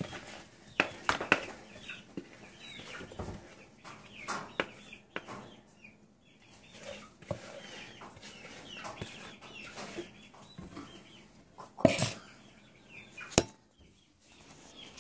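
Chickens clucking faintly in the background, with a few sharp knocks of a batter bowl and utensil against a cast-iron skillet, the loudest about twelve seconds in.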